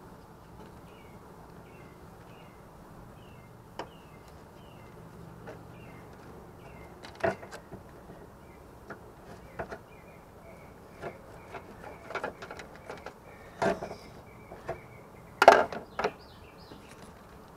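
Scattered sharp metal clicks and knocks of hand tools, a screwdriver and a long wrench, working at a Prius inverter coolant pump and its hose fittings. The loudest cluster comes near the end. A faint chirping repeats about twice a second in the background.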